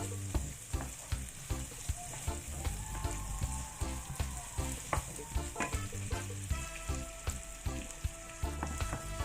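Onions and garlic sizzling in hot oil in a pan while they are stirred with a ladle, with frequent sharp taps and scrapes of the ladle against the pan.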